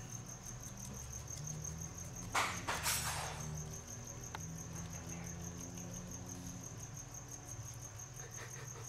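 Crickets chirping in a steady, evenly pulsing high trill over a low steady hum. About two and a half seconds in, a brief loud rustle and scrape as a hand moves against the bark hide and wood-chip substrate of the lizard enclosure.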